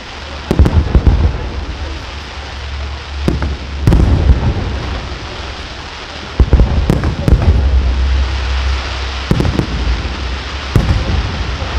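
Aerial fireworks shells bursting in loud, sharp bangs at irregular intervals, some in quick runs of two or three, over a steady low rumble.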